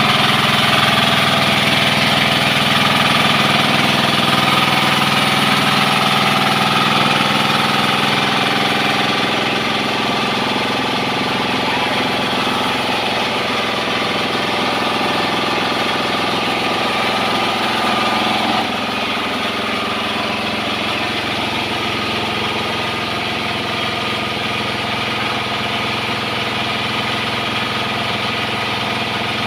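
Engine of a horizontal sawmill running steadily, with a slight change in its sound about eighteen seconds in.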